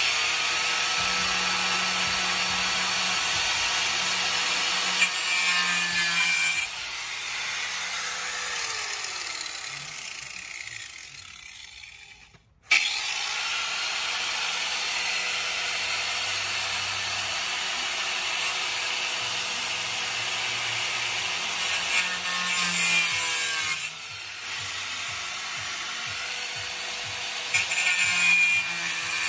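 Corded angle grinder grinding steel studs off a car's engine bay. It runs steadily under load, lets off about seven seconds in and winds down to a stop with a falling tone, then starts again sharply about halfway through and grinds on, rising and easing as the disc bites.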